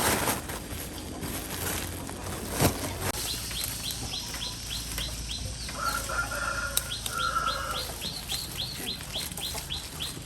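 Bird calls: a run of short, falling chirps repeated about two or three times a second, over a low steady background, with two sharp knocks in the first three seconds.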